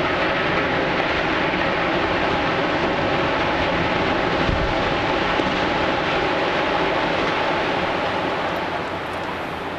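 Stadium skybox tower of concrete and steel collapsing as it is pulled down: a long, loud rumble of falling debris, with a low thud about four and a half seconds in, dying away slowly near the end.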